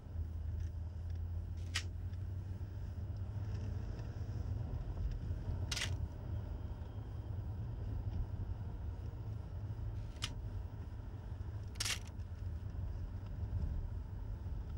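Compact camera shutter clicking four times, two of the clicks slightly longer than the others, over the steady low rumble of a car driving.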